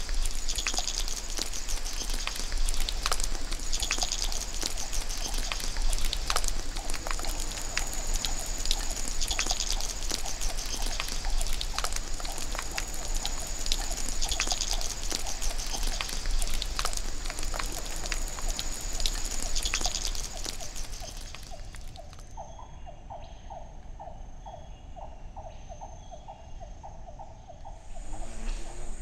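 Tropical forest ambience: heavy rain pattering and dripping, with a high insect drone that swells and fades. About 22 seconds in the sound cuts to a quieter stretch where a low chirping call repeats about three times a second.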